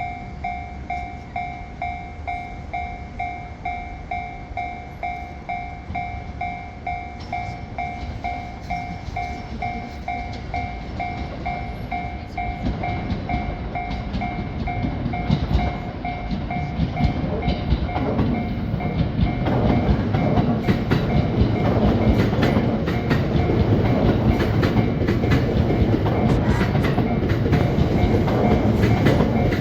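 Japanese railway level-crossing alarm ringing its rapid two-tone electronic ding-ding, then a train running over the crossing, its wheels clattering on the rails and growing louder through the second half as the alarm is drowned out.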